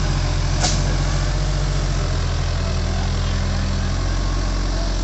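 Sumitomo excavator's diesel engine running steadily at a constant speed, with a single sharp knock about half a second in.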